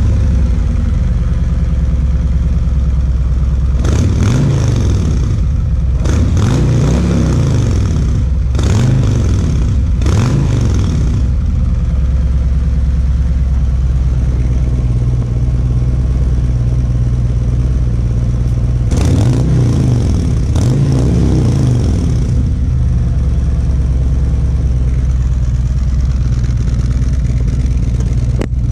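Touring motorcycle's V-twin engine idling after a start, with a run of throttle blips that rev up and fall back about four to eleven seconds in, and two more around twenty seconds in.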